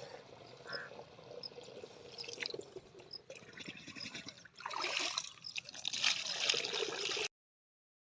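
Water splashing and trickling, louder in the second half, then cutting off suddenly near the end.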